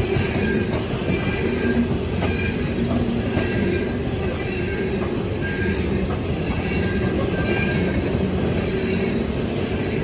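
CSX coal train's hopper cars rolling past: a steady rumble of steel wheels on rail, with short high wheel squeals about once a second.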